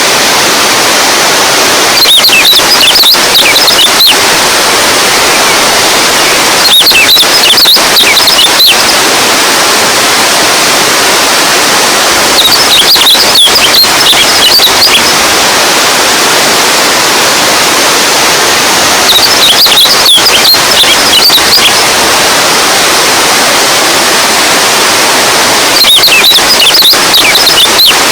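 Running water rushing steadily and loudly, as from a stream. Short bursts of high, twittering chirps come in five times, about every six seconds.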